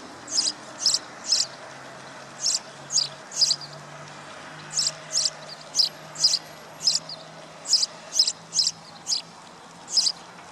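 A small bird chirping: short, sharp high chirps, often in quick twos and threes, repeating about every half second to second, over a faint steady low hum.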